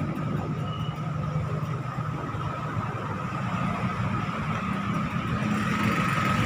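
A motor vehicle driving along: a steady engine and road noise with a thin high whine running through it, growing a little louder near the end.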